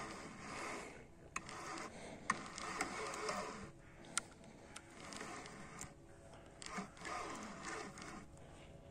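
Small spinning reel being cranked, its rotor and gears whirring in uneven stretches with a few sharp clicks as braided line is wound in against a small hooked carp.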